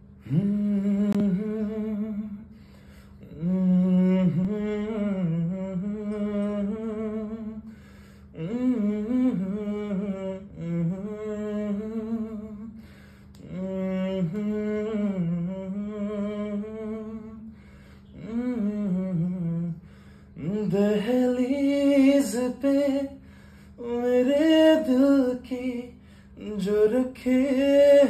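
A man's unaccompanied voice humming a slow melody without words, in about seven long wavering phrases with short breaks between them. About two-thirds of the way through, the phrases grow louder and brighter, as he opens into sung vowels.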